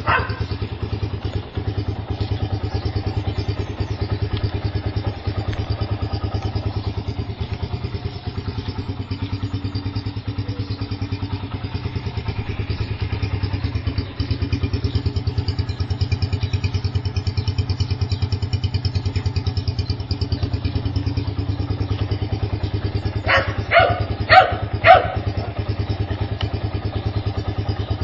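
Yamaha YBR single-cylinder motorcycle engine idling steadily through an aftermarket Roncar turbo-style exhaust, a constant low pulsing note. Near the end come four short, loud yelp-like calls.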